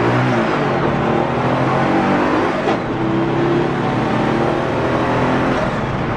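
Turbocharged 2.4-litre air-cooled Volkswagen flat-four running under way on the road, its note falling about half a second in and then holding steadier, with a brief click a little before the midpoint.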